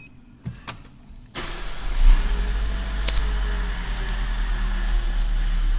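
Citroën C3 1.4 petrol engine started about a second and a half in, then running steadily at idle.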